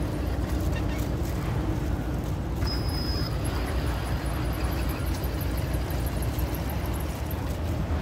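Steady outdoor noise, a low rumble with hiss, with a brief faint high whistle about three seconds in.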